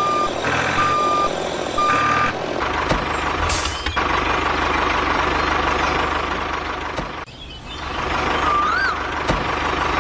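A vehicle reversing alarm beeps steadily, about one beep a second, for the first couple of seconds. Then a continuous engine-like drone with a fast buzz takes over, with a short rising-and-falling chirp near the end.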